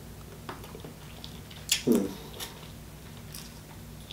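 Close-up eating sounds of a person chewing seafood-boil crab meat, with small wet clicks and crackles as the meat is picked from the shell and one louder lip smack just before halfway.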